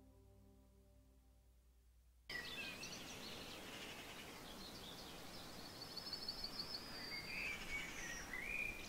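Ambient meditation music with held, steady tones fades out over the first two seconds, then gives way abruptly to outdoor ambience: a steady background hiss with birds singing, a rapid high trill around the middle and a few chirping calls near the end.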